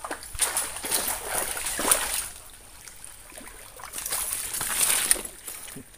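Water splashing as a hooked juvenile toman (giant snakehead) thrashes at the surface close to the bank. There are two spells of splashing: one through the first two seconds, and another about four to five seconds in.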